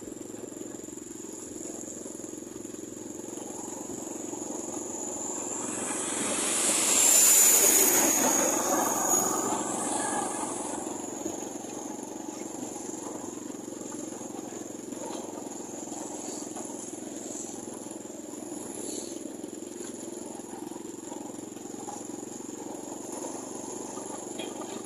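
Steady road and engine noise from travelling along a paved road. A vehicle passes close about seven seconds in, swelling up and fading away over a few seconds, with a high whine that drops in pitch as it goes by.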